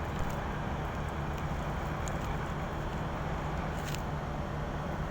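Steady low drone of ship's machinery with a constant hum and a wide rushing noise, broken by a few faint light clicks.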